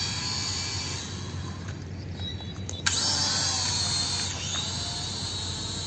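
Small E88 camera quadcopter's motors and propellers whining; about three seconds in the whine jumps louder and rises in pitch as it is throttled up.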